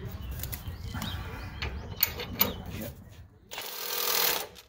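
Hand tools working on a Jeep track bar bolt: scattered sharp metallic clicks, two loud ones about two seconds in, then a hiss lasting about a second near the end.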